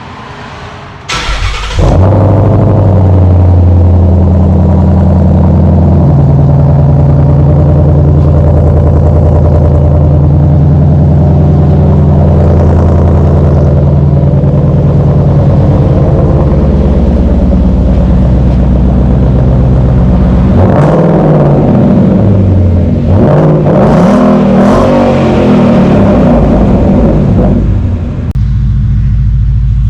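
Ford Mustang GT's 5.0 L V8 starting through a new MBRP Race cat-back exhaust: it cranks and fires about a second in, then runs at a loud, steady fast idle. Near the end it is revved several times and then settles to a lower idle.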